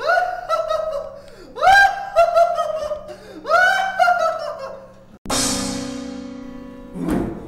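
A young man laughing in three long, high-pitched peals that rise and fall in pitch. About five seconds in this cuts off abruptly for a musical sting: a single low note that rings out and fades.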